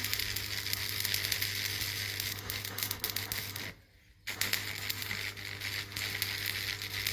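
Stick arc welding: the electrode's arc crackles and sizzles steadily over a low electrical hum. It breaks off for about half a second just past the middle, then strikes again.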